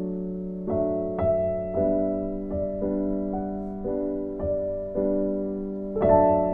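Background music: a gentle keyboard piece with soft piano-like notes, a new note or chord struck about every half second.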